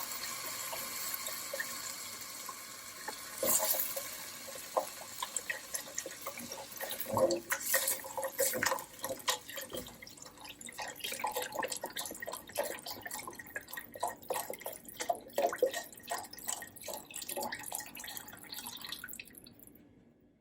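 Vegetable stock pouring into a cooking pot in a steady stream, strongest in the first few seconds and then thinning, with scattered knocks and clinks; the sound dies away near the end.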